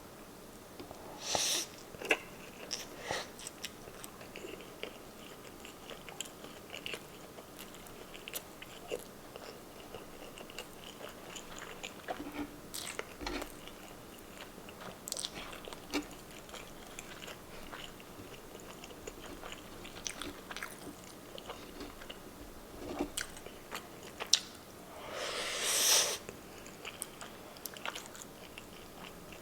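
Close-miked chewing of a mouthful of pork tocino and corned beef hash, with scattered wet mouth clicks and smacks. There is a louder rush of noise near the end.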